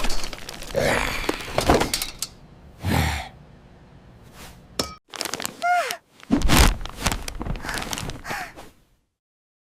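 Cartoon sound effects: a run of thuds and cracks mixed with short voice-like cries that fall in pitch, stopping dead about nine seconds in.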